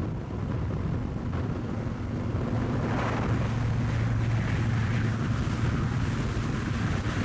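Car engine running at a steady speed, with wind noise.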